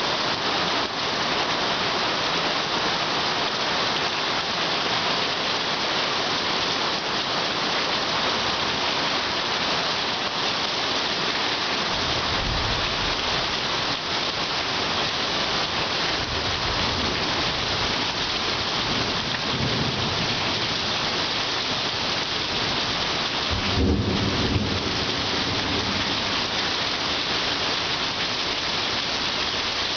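Heavy rain pouring steadily during a thunderstorm, with low rolling thunder in the middle and a louder rumble later on.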